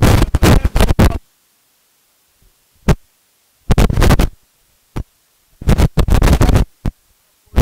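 A man talking into a handheld microphone, his voice overloaded into harsh noise in several loud bursts with dead silence between them.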